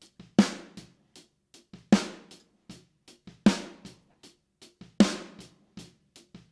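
Playback of a live-recorded drum kit, its snare layered with an Addictive Trigger replacement sample. There is a loud, ringing snare backbeat about every one and a half seconds, five hits in all, with lighter ticks between them.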